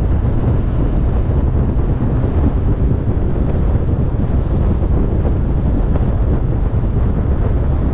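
Wind buffeting the microphone of a camera mounted on a Yamaha FJR 1300 motorcycle at riding speed, mixed with the bike's engine running. The sound is a steady, low rumble.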